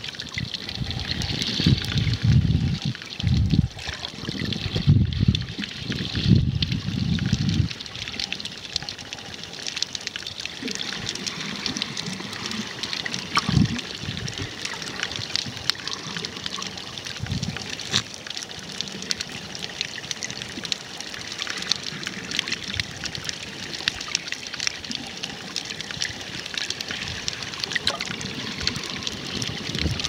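Underwater ambience picked up by a submerged camera: a steady fine crackle with water moving over the microphone, and low muffled rushes of water during the first eight seconds.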